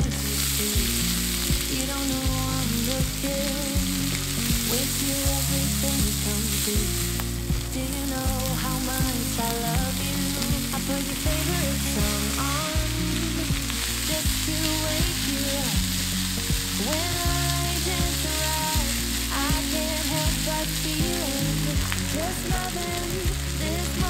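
Food frying in a pan, a steady sizzling hiss, under background music with a low bass line that changes note every second or two.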